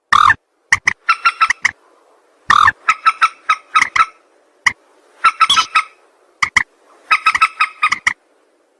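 Mandar sawah, a rail, calling: loud, clipped, repeated notes in quick bursts of several notes each, with short pauses between the bursts.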